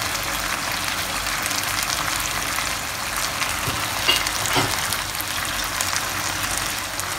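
Beef and vegetable stir-fry sizzling steadily in a hot non-stick pan as light soy sauce is spooned in, with a couple of light knocks about four seconds in.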